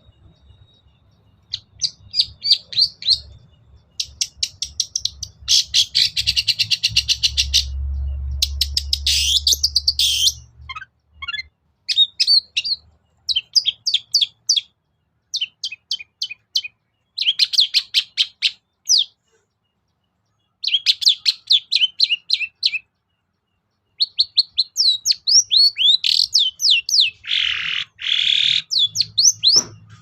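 Long-tailed shrike (cendet) singing in repeated bouts of rapid, high chattering notes with short pauses between them, and a harsh rasping call near the end.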